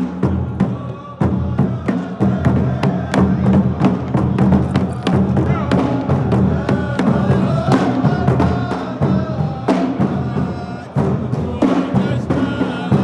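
Frame drums beaten in a steady beat, typical of a Saudi ardah sword dance, with men's voices chanting over them from about the middle on.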